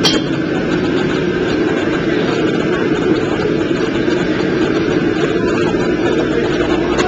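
Steady, loud roar of a commercial kitchen's wok range, its gas burners and ventilation running without a break. A short clink of metal sounds right at the start.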